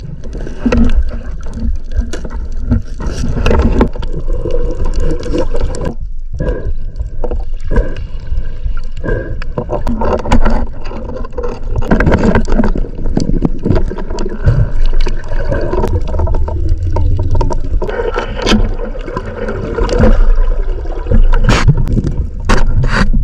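Water sloshing and gurgling close against a GoPro's waterproof housing, with a heavy low rumble and scattered sharp knocks, louder near the end.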